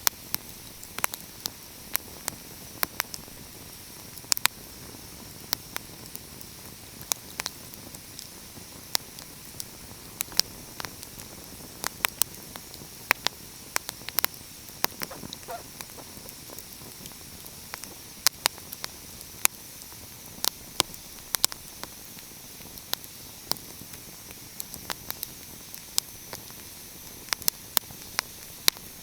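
Wood fire crackling: irregular sharp pops and snaps, sometimes several in a second, over a steady soft hiss.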